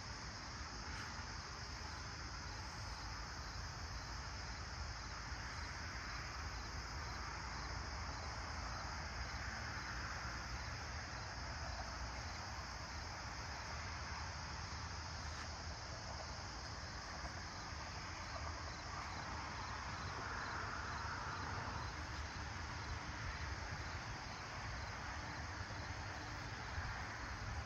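Late-summer insect chorus: a steady high-pitched trill with a faint regular pulse in it. Under it is a low background rush that swells and fades twice.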